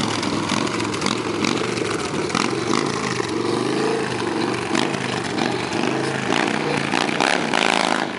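Cruiser motorcycle engine running at low speed and revving lightly as the bike is ridden slowly through a course.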